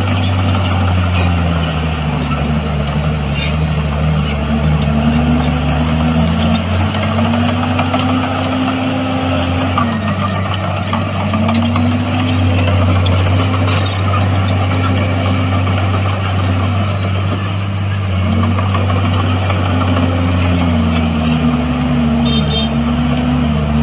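Heavy diesel engine of a bulldozer running steadily, its pitch rising and falling again and again as the throttle changes while it works.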